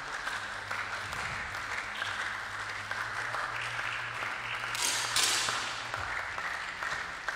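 Steady spectator crowd noise in the indoor shooting hall: an even hiss of voices and movement over a low hum, with a short brighter hiss about five seconds in.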